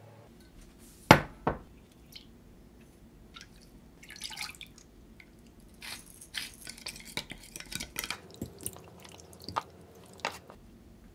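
Kitchen prep sounds: a knife slicing on a wooden cutting board with two sharp knocks about a second in, then a run of small clicks, clinks and scrapes from a glass measuring jug, spoon and pepper grinder as a sauce is mixed.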